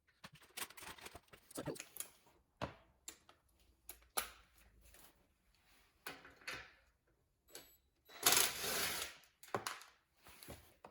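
Metal tools and bicycle parts clicking and knocking irregularly as the bike is worked on, with a louder hiss-like noise lasting about a second near the end.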